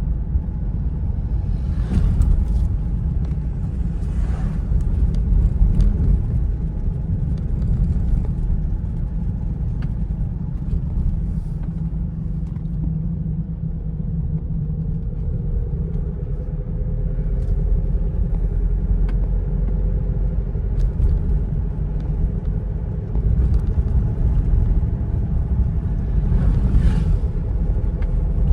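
A car driving on the road: steady low rumble of tyres and engine, with a faint engine tone that drifts up and down near the middle. Brief hissing swells come about two seconds in, again a couple of seconds later, and near the end.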